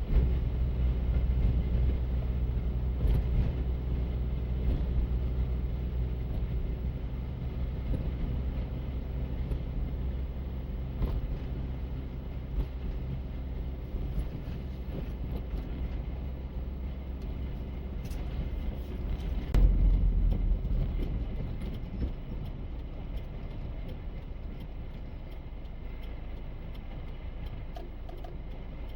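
Four-wheel-drive truck engine running steadily as the truck drives, with a low hum that slowly eases off, and one short heavy bump about two-thirds of the way through.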